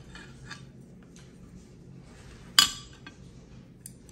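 Tableware on a dinner table: faint small knocks, then one sharp clink of a dish or utensil on porcelain about two and a half seconds in, ringing briefly.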